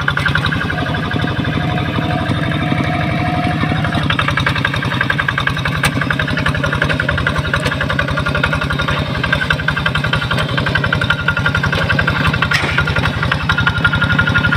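Single-cylinder diesel engine of a two-wheel hand tractor running steadily under load as it pulls a plough through paddy mud, with a rapid, even chugging beat.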